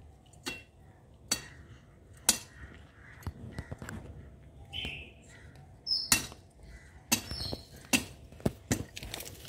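Sharp clicks and knocks at irregular intervals, about eight of them, with a few short bird chirps in the background around the middle.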